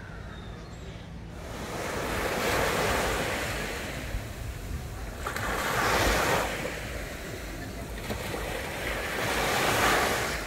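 Sea waves washing onto the shore, the surf swelling and fading three times, about every four seconds.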